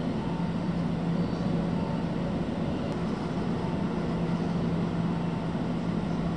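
Tobu 70000 series electric train standing at the platform: a steady hum with a constant low tone.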